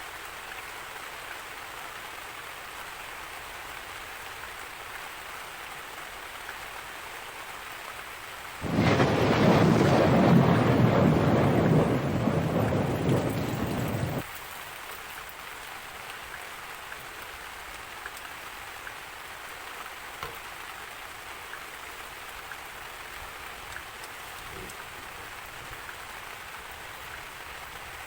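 Steady rain, with a loud rumble of thunder that breaks in about nine seconds in, lasts about five seconds, and cuts off suddenly.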